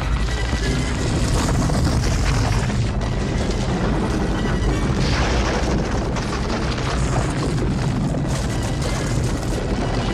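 Continuous deep rumble of a giant stone boulder rolling through a temple tunnel, with a dramatic film score playing over it.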